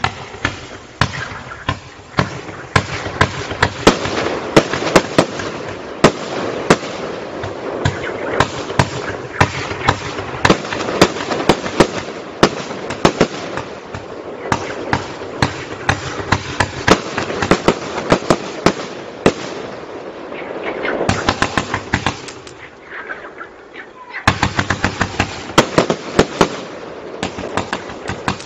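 Spektakel 126-shot automatic firework cake firing in rapid succession, with a dense run of sharp launch reports and bursts, several a second. The shots thin out briefly near the end, then a last flurry follows.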